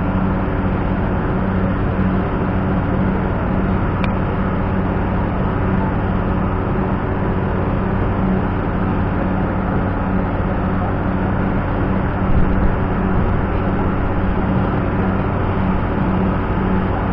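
Loud, steady drone of running machinery with a low hum, noise like being inside an engine room. A single sharp click about four seconds in.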